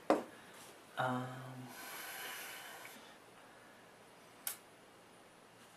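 Dice clicking as they are set down on the game table, once right at the start and again about four and a half seconds in, with a short hummed 'mm' and a breathy exhale from a player in between.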